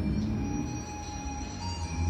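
Slow background music of long held tones over a steady low drone.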